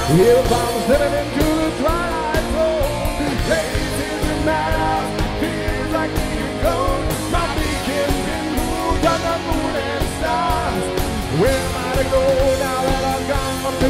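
A live rock band playing: electric guitars, bass, drums and keyboards. A bending melody line runs over steady chords.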